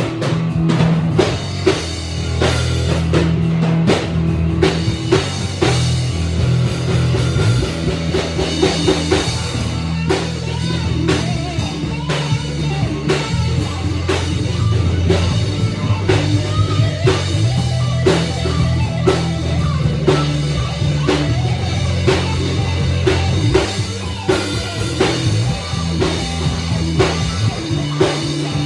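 A band of drum kit, guitar and bass guitar playing an instrumental together, with the bass line and steady drum hits most prominent.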